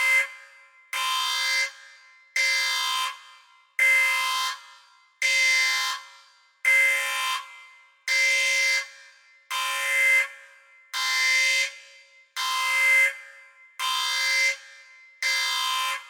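Spaceship alarm sound effect: a buzzing, horn-like klaxon sounding in short, loud blasts of steady pitch, about one every one and a half seconds. Each blast cuts off and fades quickly before the next.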